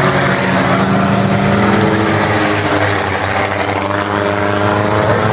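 IMCA Sport Compact race cars, four-cylinder cars, running together at racing speed, engines holding a steady pitch.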